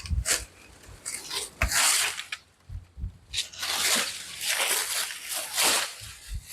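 Dry dead plant leaves rustling and tearing in several short bursts as they are pulled and cut away, with wind buffeting the microphone.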